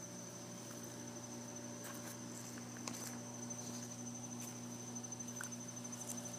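An insect trilling, one steady high-pitched note without a break, over a low steady hum, with a few faint clicks.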